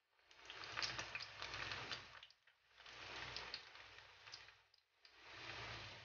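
Oil faintly sizzling and crackling as meat-stuffed bitter gourds (ampalaya) shallow-fry in a pan. The sound swells and cuts out briefly about every two and a half seconds.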